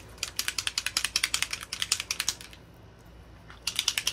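Small shimmer spray bottle being shaken, rattling in quick, even clicks in two bouts: a long one of about two seconds, then a shorter one near the end.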